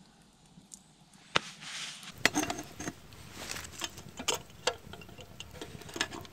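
Dry wood crackling and snapping: one sharp snap about a second and a half in, then a dense run of irregular clicks and crackles.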